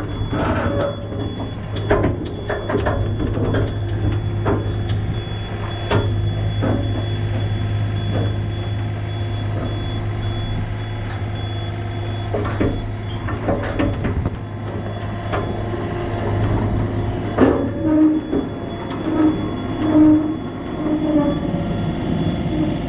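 Excavator's diesel engine running steadily, with metal clanks and knocks as the machine is loaded onto a trailer. Near the end a beeping tone repeats about once a second.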